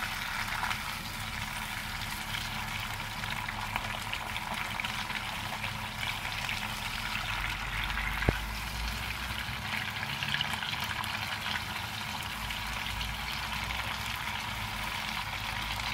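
Sliced tomatoes and onion sizzling in oil in a nonstick frying pan while being turned with wooden chopsticks: a steady crackling sizzle. A single sharp click comes a little past halfway.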